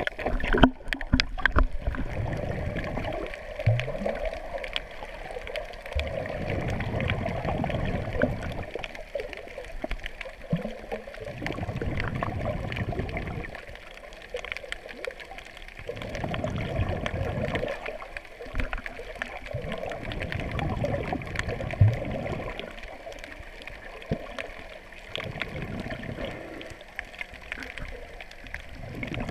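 Muffled underwater water noise picked up through a GoPro's waterproof housing, swelling and fading in surges every couple of seconds, with a few sharp clicks about a second in.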